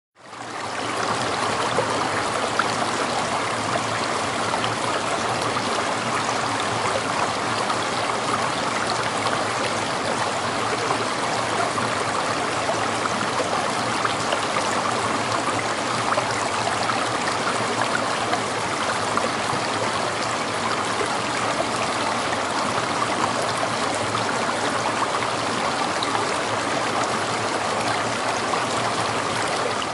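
Shallow stream running over stones, a steady babble of water that fades in at the start.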